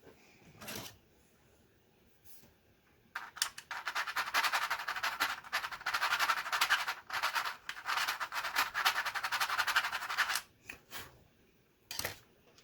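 Rapid, dense plastic clicking and clattering from Commodore 64 keyboard keys and plungers being worked, running for about seven seconds, with a few single clicks before and after.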